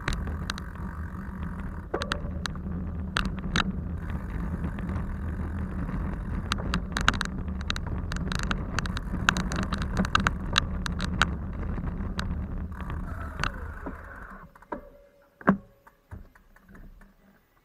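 A vehicle engine running steadily, with frequent rattling clicks over it; the engine sound cuts off about three-quarters of the way through, leaving a few clicks and a single knock.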